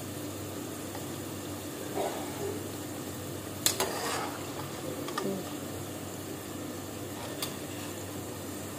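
Potato fries sizzling steadily in hot oil in their second fry, with a metal slotted skimmer stirring them and clinking against the pot a few times, the sharpest knock about three and a half seconds in.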